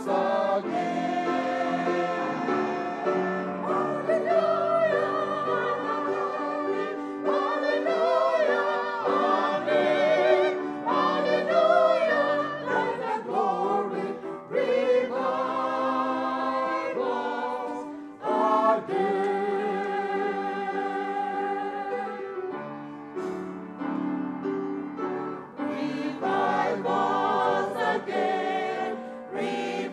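Small church choir of men and women singing a hymn together in held, steady phrases.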